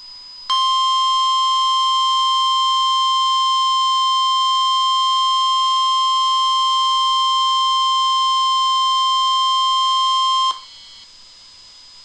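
NOAA Weather Radio warning alarm tone, the single 1050 Hz tone that announces a warning broadcast, here a flash flood warning. It is one steady, loud tone held for about ten seconds, starting about half a second in and cutting off abruptly.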